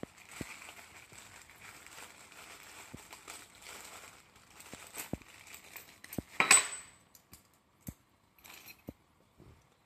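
Small plastic accessory bag crinkling as it is handled, then scattered light clicks and taps of small metal tools and parts. About six and a half seconds in comes the loudest sound, a sharp metallic clink with a brief high ring.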